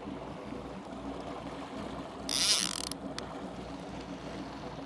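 Baitcasting fishing reel ratcheting briefly about halfway through, line paying out, followed by a single sharp click. A boat motor drones steadily underneath while trolling.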